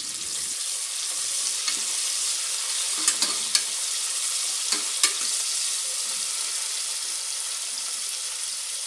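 Sliced onions sizzling in hot oil in a pressure cooker as they are stirred and sautéed, with a few sharp clicks in the middle.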